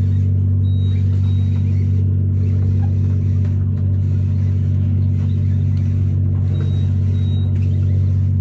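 Fishing boat's engine running at a steady idle: a constant low drone that does not change in pitch or level.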